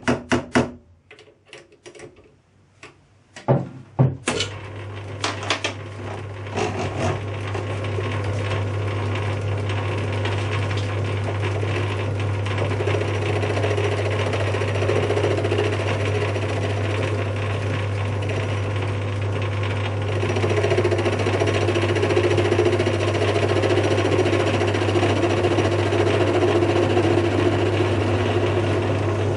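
Chuck key clicking and knocking as a cast metal pulley blank is tightened in a lathe's three-jaw chuck. About four seconds in the lathe starts and runs with a steady low hum while the cutting tool faces the blank, the cutting noise growing louder about twenty seconds in.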